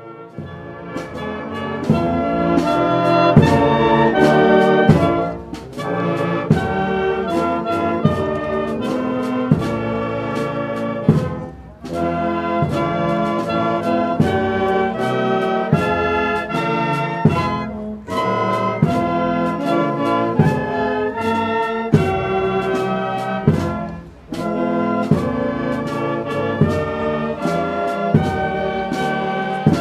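A live wind band plays a slow piece, led by brass such as trumpets and trombones, over regular drum strokes. It starts softly and swells within the first two seconds, then moves in phrases of about six seconds with short breaths between them.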